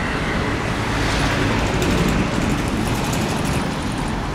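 Street traffic noise, with a vehicle passing close by that grows louder and hissier from about a second in and fades again near the end.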